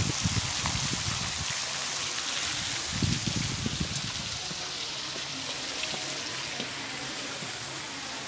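Steady rushing noise like running water, easing slightly over the last few seconds, with low rumbling bumps in the first second and again about three seconds in.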